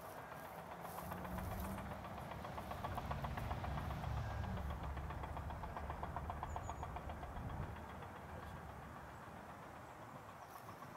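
Distant diesel engine rumbling low with a faint rhythmic knock, swelling about four seconds in and fading toward the end.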